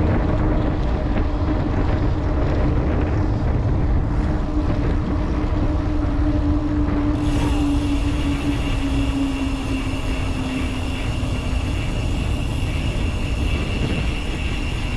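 Wind rushing over the microphone and tyre rumble from a mountain bike riding along an asphalt road, with a steady hum underneath that slowly drops in pitch and fades out about eleven seconds in.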